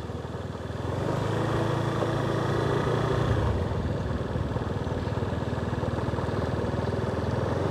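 Motorbike engine running at a steady riding speed, with road noise.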